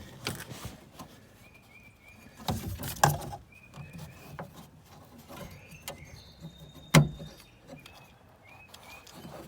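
Scattered knocks and clicks of a replacement exterior car door handle being forced into place in the door, the part fighting the fit; one sharp knock about seven seconds in is the loudest.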